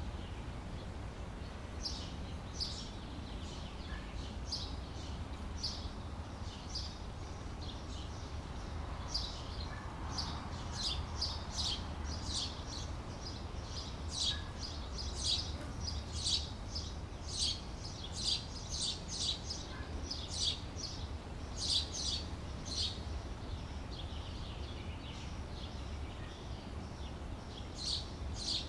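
Outdoor summer-day ambience: birds chirping in many short, high notes, busiest through the middle, over a steady low background rumble.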